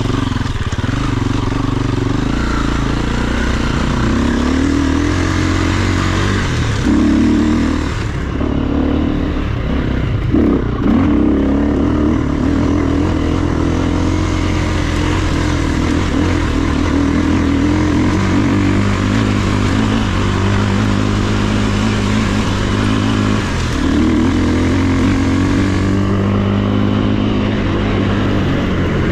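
KTM enduro dirt bike engine running under way, heard close up from the rider's own bike, the revs rising and falling with the throttle, with a few brief surges and dips.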